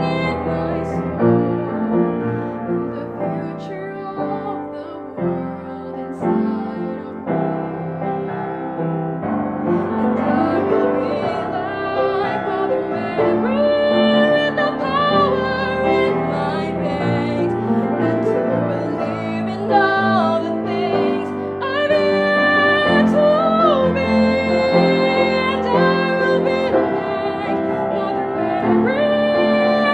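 Music: a piano plays with a slow melody line above it, whose held notes waver in pitch, growing fuller about a third of the way in.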